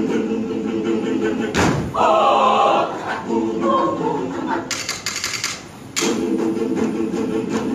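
Mixed show choir singing in sustained chords, with louder high voices coming in about two seconds in. Sharp thumps land about a second and a half in and again about six seconds in, with a quick run of sharp clicks near the middle.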